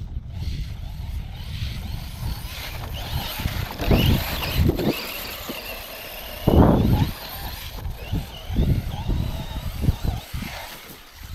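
Tekno MT410 electric RC monster truck driving over beach sand, its motor and drivetrain whining up and down in pitch. A steady wind rumble on the microphone runs underneath, with several loud low thumps.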